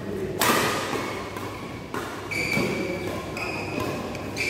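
Badminton rackets striking the shuttlecock in a fast doubles rally, several sharp hits about a second apart with the first the loudest, echoing in a large hall. Short high squeaks from shoes on the court run between the hits.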